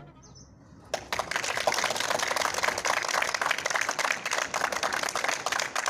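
A small group of people clapping, starting suddenly about a second in.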